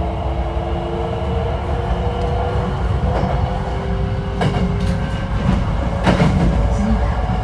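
Hankyu 9300 series electric train running, its Toyo IGBT-VVVF inverter and traction motors whining in several tones that rise slowly as the train gathers speed, over a low rolling rumble. Two sharp wheel clacks over rail joints come about four and a half and six seconds in.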